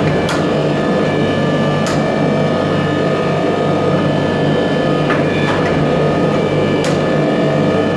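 A steady, loud machine running in a forge workshop, a constant hum with several held tones, with a few sharp knocks at irregular moments.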